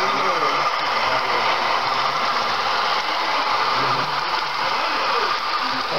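HO-scale model freight train rolling past on the layout track: a steady whirring noise, with faint voices behind it about four seconds in.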